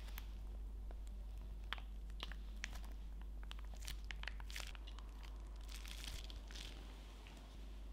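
Plastic piping bag being squeezed as soft white chocolate mousse is piped out, with faint crinkling and small wet clicks. In the second half come a few longer soft bursts of noise, as the mousse and air push out of the nozzle.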